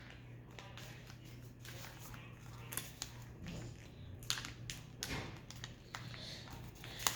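A sheet of paper being folded and creased by hand: faint, scattered rustles and small taps, with one sharper click near the end, over a steady low hum.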